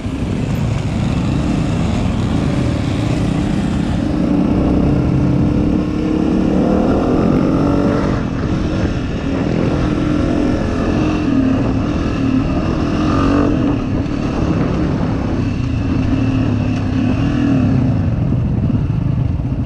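Dirt bike engine running while being ridden along a trail, its note rising and falling with the throttle, with wind and road noise over it.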